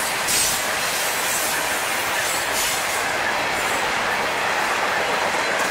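Covered grain hopper cars of a freight train rolling past: a steady noise of steel wheels on the rails, with brief sharper wheel sounds about once a second in the first half.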